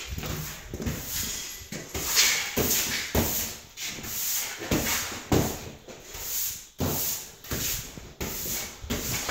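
Footsteps scuffing and crunching on a gritty bare concrete floor, about two steps a second, each a rough scraping rasp.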